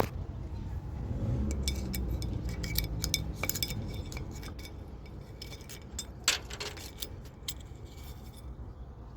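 Small metal parts and tools clinking and scraping together in a scatter of light clinks, with one louder knock about six seconds in, over a low rumble that fades after the first few seconds.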